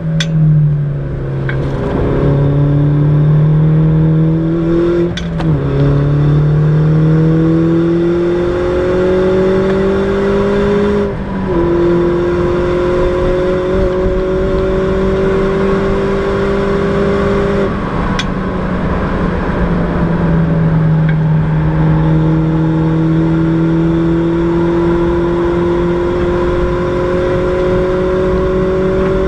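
Mini John Cooper Works (R56) 1.6-litre turbocharged four-cylinder, heard from inside the cabin at full throttle. The engine note climbs steadily and drops sharply at upshifts about five and eleven seconds in. It falls away as the throttle is lifted about eighteen seconds in, then climbs again from about twenty-one seconds. A few sharp clicks come near the start and with the shift changes.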